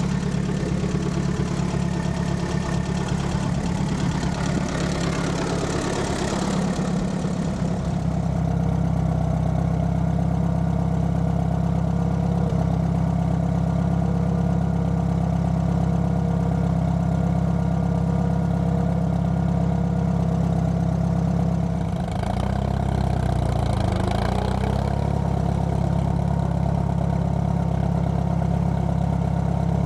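Allis-Chalmers B tractor's four-cylinder engine running steadily as the tractor drives along. About three-quarters of the way through, the engine note dips and shifts in pitch for a few seconds before settling back to a steady run.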